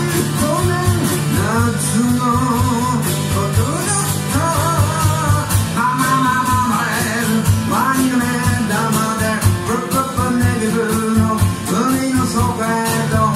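Live music: a man singing into a microphone over a strummed acoustic guitar, with drums and percussion keeping a steady beat.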